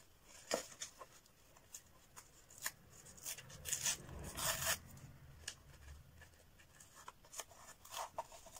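White backing paper being peeled by hand off a black self-adhesive sheet: scattered paper rustles and crackles, with a longer rasping peel about four to five seconds in.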